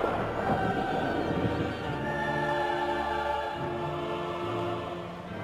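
Dramatic orchestral music with a choir holding long chords over a steady low bass.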